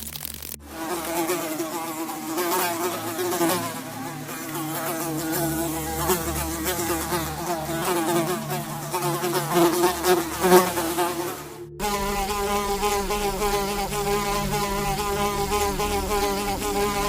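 Flying insect buzzing: a steady drone that wavers slightly in pitch. It cuts off suddenly about twelve seconds in, and an evener buzz starts at once.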